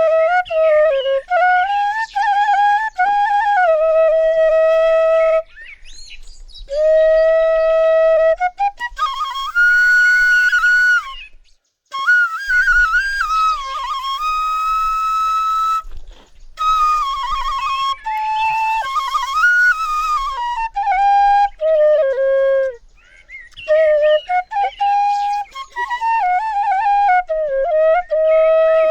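Bansuri (bamboo flute) playing the melody of an old song, one clear line in phrases with short pauses for breath between them.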